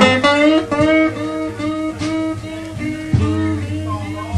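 Electric blues guitar playing lead lines, with notes bent upward and wavering with vibrato, over a steady low bass line.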